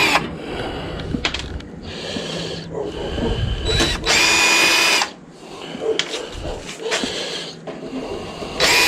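Cordless power drill driving out casing screws in short runs of about a second each, a steady whine, with screws and metal parts clicking and rattling between runs.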